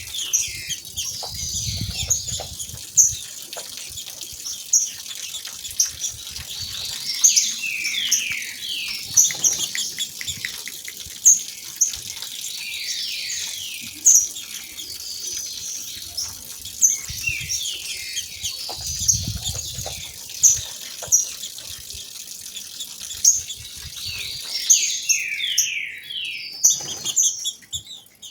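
Female green-winged saltators (trinca-ferro) giving sharp high chirps every second or two, with a couple of quick runs of falling notes, over the steady rush of a waterfall.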